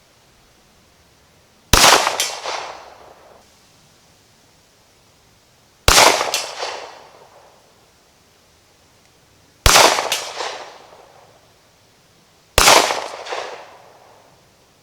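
Glock 17 Gen 4 9mm pistol fired four times as slow, aimed single shots a few seconds apart, each shot followed by an echo trailing off.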